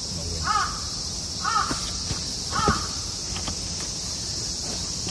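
A crow cawing three times, about a second apart, over a steady high insect drone.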